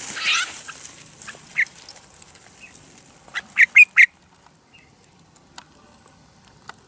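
Red-whiskered bulbul giving short, harsh alarm calls while being handled, with a quick burst of four loud calls about three and a half seconds in. Rustling of leaves and the wire trap is heard at the start.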